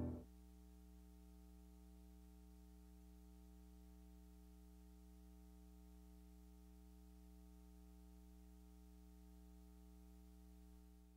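Near silence with a faint, steady low hum, after background music fades out at the very start.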